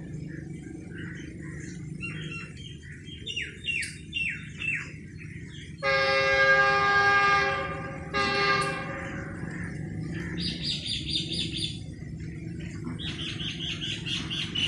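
Locomotive horn sounding one long chord-like blast of about two seconds, then a short second blast. Birds chirp around it: a run of quick falling whistled notes before the horn, and fast repeated chirps after it.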